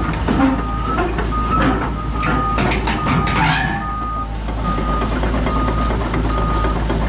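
Excavator running with its travel alarm beeping steadily, a single-tone beep about three times every two seconds, over the engine's low drone. Through the first few seconds there is sharp clanking and scraping of metal and debris.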